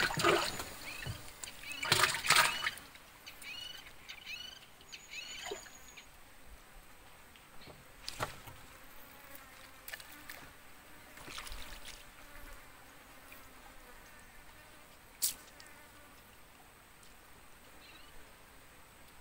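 Two short bursts of water splashing near the start, followed by a few seconds of short high bird chirps. After that the river is quiet, with faint insect hum and a few soft knocks.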